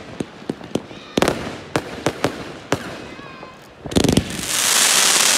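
Fireworks going off: aerial shells bursting in a rapid run of sharp bangs and crackles. A heavier cluster of bangs comes about four seconds in, then a loud hiss builds near the end.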